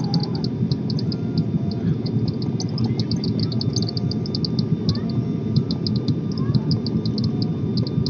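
Steady drone of engine and airflow inside an airliner cabin, heard at a window seat, with a fast, irregular high ticking over it.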